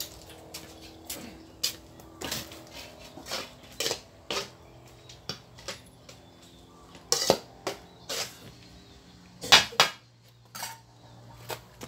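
Several cats eating cooked rice together from a plastic plate: irregular clicks and knocks of chewing and of mouths striking the plate, with two louder clicks a little past the middle and near the end.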